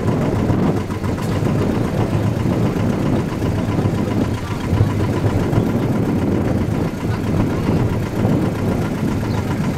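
Tour boat's engine running steadily at low speed, a low mechanical drone.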